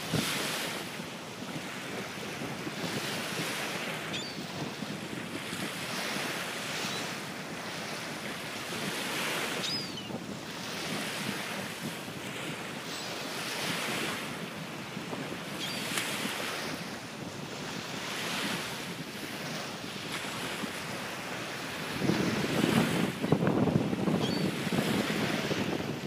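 Small waves washing onto a sandy shore, swelling every couple of seconds, with wind on the microphone that grows much stronger about four seconds before the end. A few short, high gull calls sound over it.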